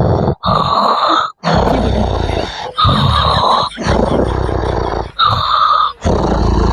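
A man snoring loudly and harshly: a quick run of about seven long, noisy snores with short breaks between them.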